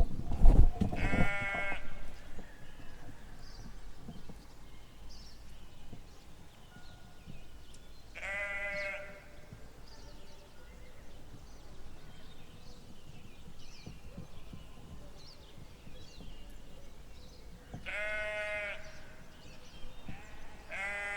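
Sheep bleating: four separate bleats, each under a second long, spaced several seconds apart, the last starting near the end. Faint high chirps sound in the background between them.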